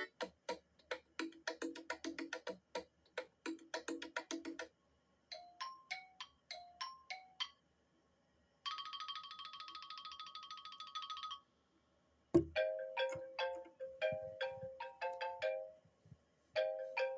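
iPad mini 4 ringtones played one after another, with short gaps between them: a quick run of plucked notes, a short pattern of chime notes, a rapid buzzing trill, then a melodic tone that stops briefly and starts again near the end.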